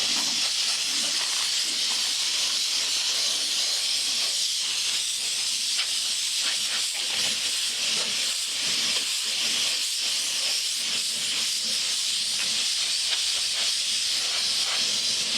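Primer being sprayed: a steady hiss of spray that runs without a break.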